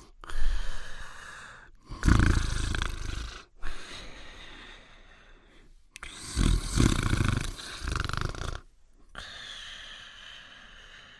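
Cartoon dog snoring: loud snores every few seconds, each trailing off into a quieter, airy breath out.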